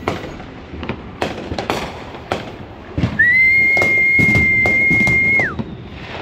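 Scattered sharp bangs of New Year's gunfire and fireworks, irregular and at varying distances. About three seconds in, a loud, steady, high whistle starts, holds for about two seconds, then drops in pitch and stops.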